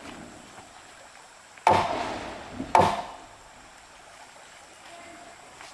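Two heavy blows of a tool on timber about a second apart, each sharp and fading quickly.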